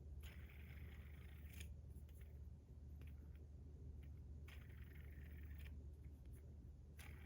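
Faint metallic whirring and scraping from a fidget spinner being spun and handled, in three stretches of about a second each, over a steady low hum.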